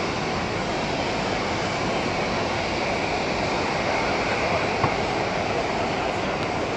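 Rolls-Royce Trent 700 turbofans of an Airbus A330-300 running at taxi power, a steady rushing jet-engine noise.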